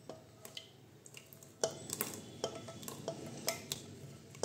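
Thick cooked milk mixture being poured and scraped from a non-stick pan into a steel bowl, with a series of faint clicks and clinks of a utensil against the pan.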